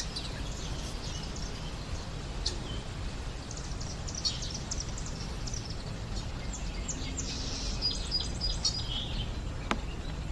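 Birds chirping: many short high calls in quick runs with a brief whistled note, over a steady low background rumble.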